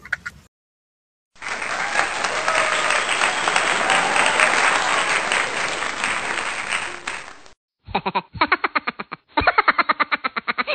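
A crowd cheering and applauding for about six seconds, likely an added sound effect. After a short gap, quick, evenly spaced laughter runs on to the end.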